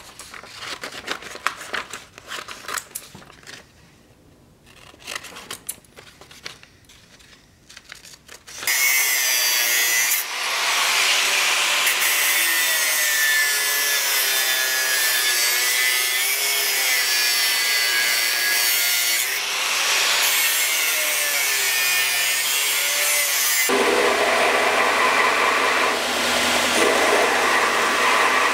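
Paper rustling and light handling clicks, then an abrasive cutting disc cutting a steel bar in a vise, loud and steady with a whine that wavers under load. About 24 seconds in it cuts to a belt grinder running with a lower hum.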